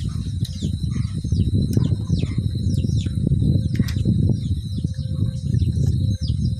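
Many short, high, falling chirps of small birds over a steady low rumble.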